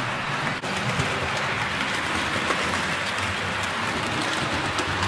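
HO-gauge model train, a C57 steam locomotive model hauling passenger coaches, running on the track: a steady rolling rattle of small metal wheels on the rails, with faint clicks as they cross rail joints. The sound dips briefly about half a second in.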